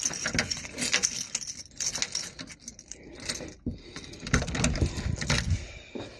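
Keys jangling and clicking as a door is unlocked and opened by its metal lever handle, with a few heavier knocks about four to five seconds in.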